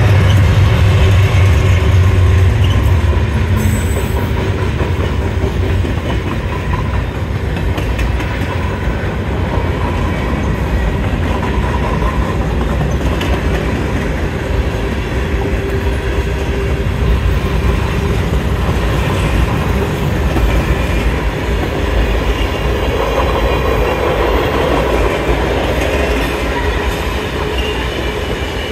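Freight train passing over a street grade crossing. The diesel locomotives' engines are loudest in the first few seconds, then the freight cars roll through with steady wheel clatter on the rails.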